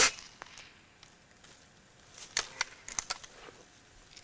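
A single sharp shot from a Remington Vantage 1200 .177 break-barrel air rifle, sudden and loud, at the very start, with a short fading tail. About two seconds later comes a quick cluster of sharp clicks and knocks.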